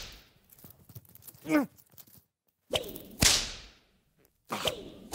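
Two whip-like whooshing swishes about two seconds apart, each starting with a short crack and fading away, like slapstick sound effects for flailing arms. About a second and a half in there is a brief falling, voice-like groan.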